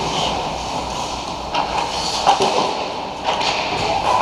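Ice hockey play close to the goal: skate blades scraping and carving the ice, with several sharp clacks of sticks and puck.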